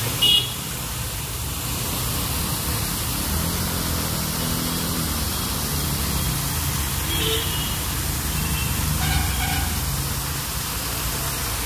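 Steady hiss of a fountain's water spray, with street traffic rumbling underneath. A short, loud, high-pitched beep sounds right at the start, and two fainter ones come later.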